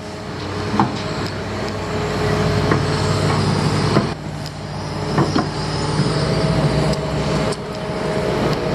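Heavy construction machinery engine running steadily, with several sharp knocks scattered through it.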